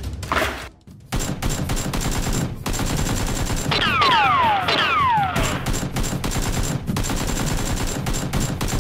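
Rapid automatic gunfire, a dense unbroken stream of shots starting about a second in, with several falling whistles of passing rounds about four to five seconds in.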